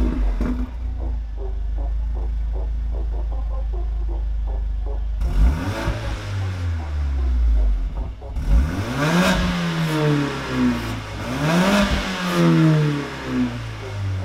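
Mercedes-AMG A45's turbocharged 2.0-litre four-cylinder through an Armytrix turbo-back exhaust with sports cat, valves closed. It has just been started: the start flare settles into a steady idle, then from about five seconds in it is revved three times, each rev rising and falling in pitch.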